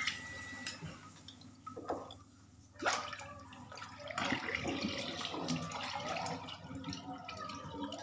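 Dishes being washed by hand at a kitchen sink: water from the tap running and splashing, with several knocks and clinks of dishware being handled and rinsed.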